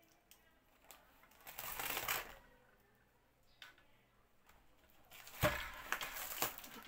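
A tape-wrapped cardboard parcel being opened: scissors cutting and scraping through packing tape, with a short rasping stretch a couple of seconds in. About five seconds in there is a knock, then steady rustling and clicking as the parcel is handled.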